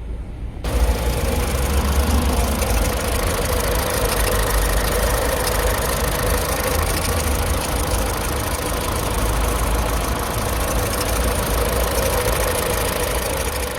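Citroën DS3's petrol engine idling steadily, cutting in abruptly about a second in.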